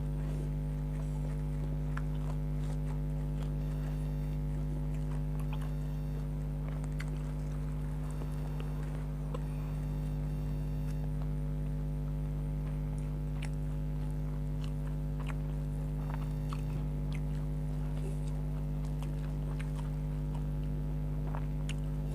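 Steady electrical hum, a low buzz with a stack of overtones, under scattered short wet clicks of chewing and mouth sounds from someone eating spiced grilled chicken.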